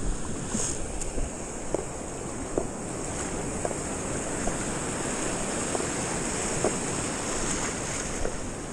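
Shallow surf washing in over the sand in a steady foamy wash, with faint scattered ticks and wind on the microphone.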